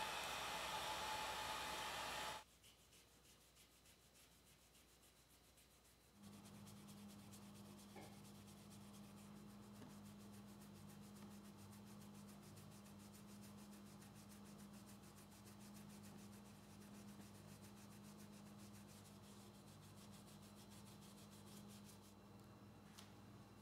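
Heat gun blowing a steady hiss, cut off abruptly after about two seconds. Later a cloth rubs and wipes on the generator's plastic side panel over a steady low hum.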